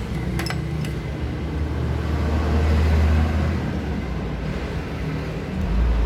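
Low background rumble that swells about two seconds in and again near the end, with a couple of light clicks in the first second.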